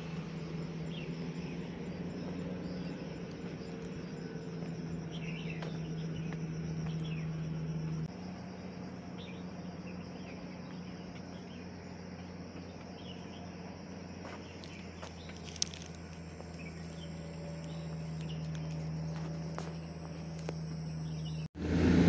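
Outdoor ambience: a steady low hum under faint, scattered short chirps of wildlife. The sound cuts out briefly near the end.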